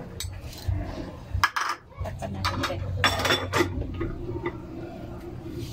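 Metal ladle and aluminium pot lid clinking and knocking against the cooking pot and a serving bowl, in a few sharp clinks, most of them about three seconds in.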